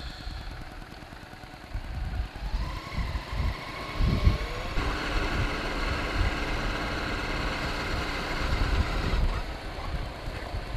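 Honda Shadow 750 V-twin motorcycle engine while riding, its pitch rising as it pulls about two seconds in, then running at a steady speed. Low wind rumble on the microphone throughout, strongest about four seconds in.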